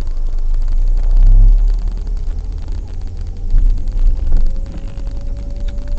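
Low, steady rumble of a car moving slowly, swelling loudest about a second in, with a faint thin whine coming in about four seconds in.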